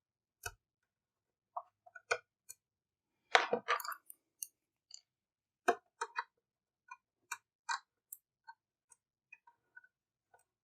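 Scattered small clicks and short scratchy scrapes of a hand tool working against the plastic casing of an Xbox One X, picking at the warranty sticker that covers a screw. The loudest scraping comes about three and a half seconds in, with another sharp scrape near six seconds.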